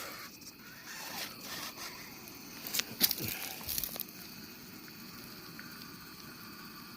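Scattered light clicks and scrapes, the loudest cluster about three seconds in, from a 1/24-scale SCX24 RC crawler's tires and chassis climbing over rock. A faint steady hiss follows.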